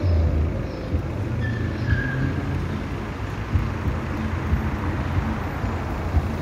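A V3A-93 articulated tram running past amid idling street traffic: a steady low rumble, with a brief faint high squeal about two seconds in.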